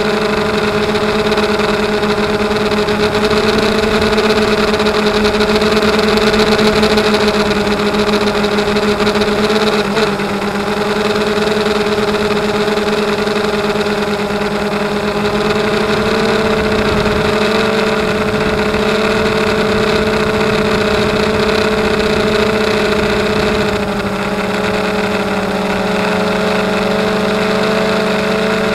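DJI quadcopter's motors and propellers humming steadily in flight, heard from the camera on board. The pitch shifts slightly a few times, with a brief click about ten seconds in.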